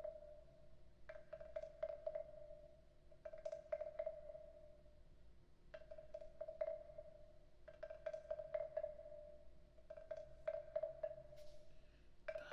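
Wooden frog percussion instrument being played in short bursts, its hollow body giving a ringing woody tone with sharp clicks, about six bursts spaced roughly two seconds apart.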